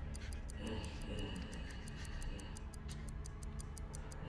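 Rapid, evenly spaced ticking of the stopwatch timer on the reverse bear trap, over a low droning music score with a thin high tone held for a couple of seconds in the middle.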